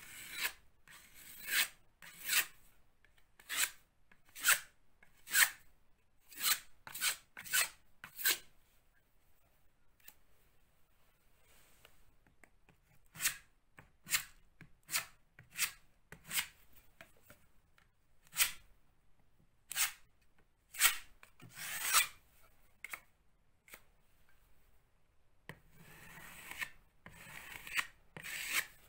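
Steel filling knife scraping across a plaster wall in short, sharp strokes, about one or two a second, as filler is spread and smoothed around a socket box. The strokes pause for a few seconds in the middle, and near the end they run together into a longer scrape.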